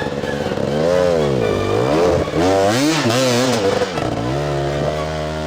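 Dirt bike engine revving up and down again and again as the rider works the throttle up a steep hill climb, with a stretch of noisy clatter about three seconds in.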